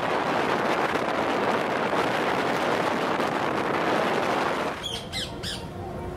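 Wind rushing over the microphone of a motorcycle moving at road speed: a steady, noisy rush with no clear engine note. About four and a half seconds in it cuts off suddenly, and a few quick bird chirps follow.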